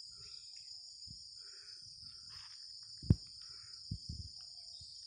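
Forest insects in a steady, high-pitched murmuring chorus. A single sharp tap about three seconds in, then two softer knocks.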